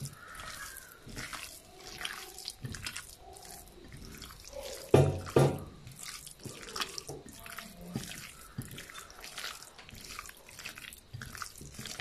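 Chicken pieces squished and turned by hand in a thick spice marinade in a glass bowl: irregular wet squelches and small clicks, with two louder knocks about five seconds in.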